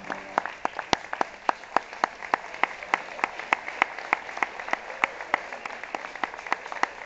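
Audience applauding, with one person's loud, sharp claps standing out over the wider applause at a steady pace of about four claps a second.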